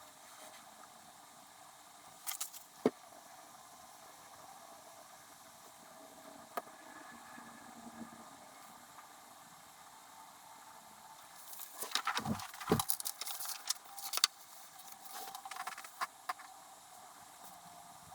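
Sped-up desk handling sounds from letter writing: a faint steady hiss with a few sharp clicks, then a busy run of clicks and rustling in the second half.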